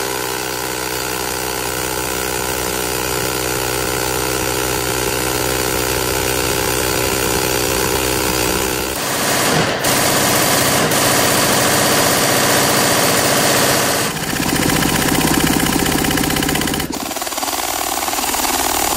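Fully automatic gunfire from several guns in turn: an M134 minigun firing continuously as one steady buzz for about nine seconds, then an MG 42 machine gun firing, and near the end an H&K MP7 submachine gun firing.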